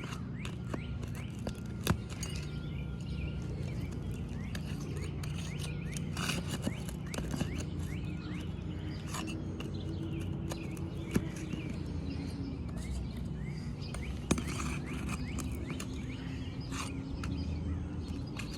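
Nails being pried out of old, brittle asphalt roof shingles: occasional scraping and a few sharp clicks, with birds chirping and a steady low hum behind.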